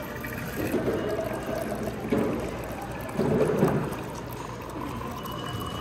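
A thin stream of water from a touchless bottle-filling station pouring steadily into a stainless steel water bottle.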